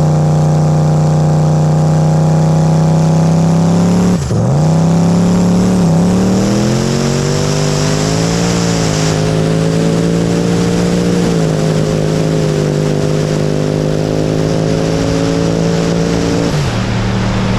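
A boosted Chevrolet TrailBlazer SS 6.0 L V8 at full throttle on a drag pass: held at a steady pitch, then a sharp dip about four seconds in before the pitch climbs, with further dips and steps at the gear changes and a drop near the end.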